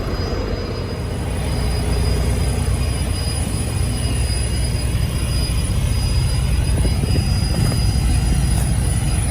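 Steady low diesel drone and road noise inside a semi-truck's cab while the truck is moving.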